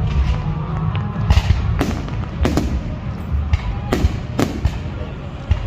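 Fireworks bursting overhead in a display over water: about seven sharp bangs, roughly two a second from about a second in, each with a brief crackling tail, over a steady low rumble.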